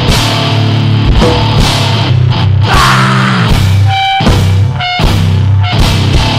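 Powerviolence recording: heavily distorted guitar and pounding drum kit playing loud and dense, with two short high-pitched squeals about four and five seconds in as the low end briefly drops away.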